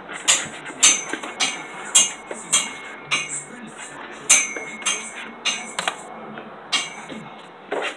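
Kitchenware clinking and clattering: about a dozen sharp, irregular knocks with a brief high ring after each, as things are handled in the kitchen.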